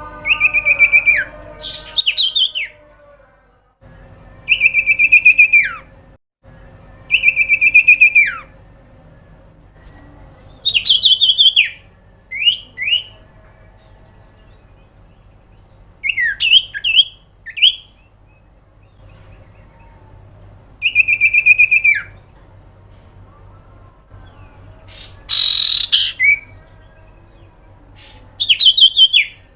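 Common iora (cipoh/sirtu) calling repeatedly: rapidly pulsed, buzzy whistled notes about a second long, most falling in pitch at the end, every two to three seconds. About 25 seconds in, one call is harsher and rasping.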